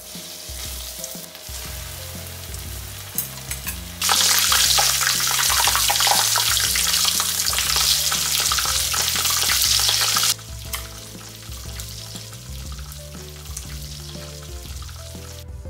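Breaded ham katsu deep-frying in a small rectangular pan of oil: loud sizzling with the oil spattering, starting abruptly about four seconds in and cutting off about six seconds later. Soft background music runs underneath.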